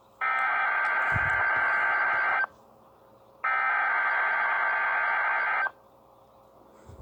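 NOAA Weather Radio SAME header: two bursts of harsh, buzzing digital data tones, each about two seconds long and a second apart. They are the coded header that opens the weekly alarm test.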